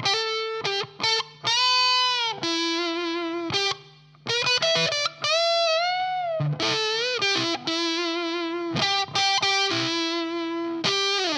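Electric guitar played through a Sola Sound MKIV Tone Bender fuzz pedal: a distorted single-note lead line of sustained notes, several bent up in pitch and held with vibrato, with short breaks between phrases.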